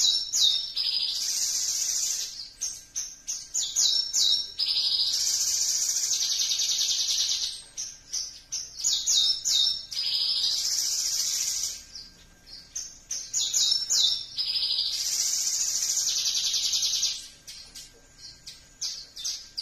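Javan bush lark (branjangan) singing: a quick run of short, sharp high notes leads into a long, fast, high trill, and the phrase repeats four times.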